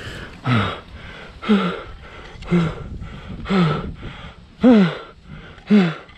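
A climber's heavy breathing under exertion: a short voiced exhale about once a second, six in all, each falling in pitch, the last two the loudest.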